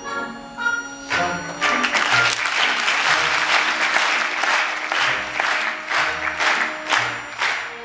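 Audience applauding over the orchestra playing ballet music; the orchestra is heard alone for about the first second, then the applause breaks out and holds until near the end.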